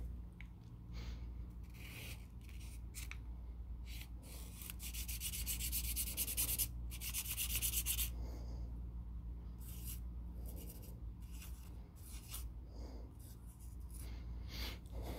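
Felt-tip permanent marker scratching across paper in colouring strokes: short strokes at first, a long stretch of continuous back-and-forth scribbling from about five to eight seconds in, then short strokes again. A steady low hum runs underneath.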